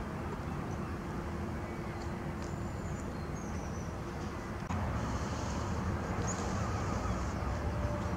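Steady low outdoor rumble that gets louder about halfway through, with a few short, faint bird calls over it.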